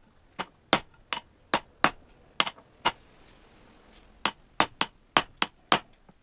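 Steel ball-peen hammer striking a metal wedge into the top of an axe handle in the head's eye. About fourteen sharp, ringing metal-on-metal strikes come in two runs, with a pause of about a second and a half in the middle.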